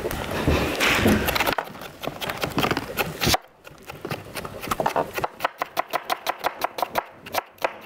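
Chef's knife chopping red pepper on a plastic cutting board: quick, even knife strokes, several a second, knocking on the board, clearest from about halfway in.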